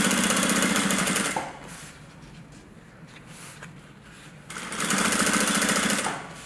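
Sewing machine stitching through thick waxed canvas in two short runs of rapid, even needle strokes, stopping for a few seconds in between.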